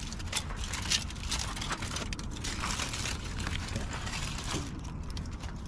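Irregular rustling and crinkling as leftover food is packed up, over a steady low rumble.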